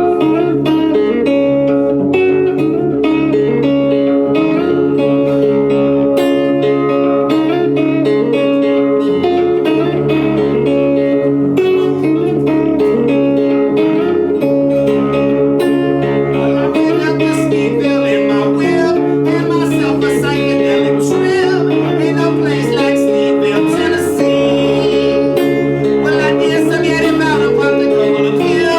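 Guitar played live in a steady, repeating blues figure: the instrumental opening of the song, before any singing.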